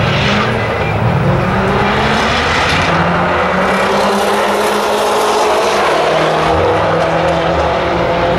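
Two cars launching off a drag strip start line and accelerating hard down the track. The engines rev up through the gears, their pitch climbing, dropping at each shift and climbing again.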